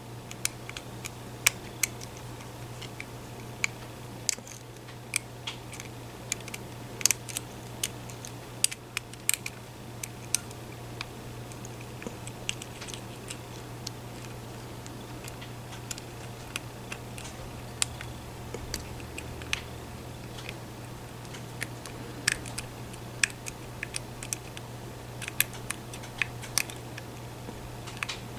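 Lock picks working inside a lock, giving irregular small clicks and ticks, some sharper than others, over a steady low hum.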